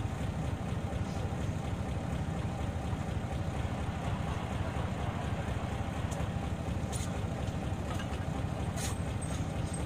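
Isuzu Erga city bus on the move: a steady low engine and road rumble, with a few sharp clicks or rattles in the second half.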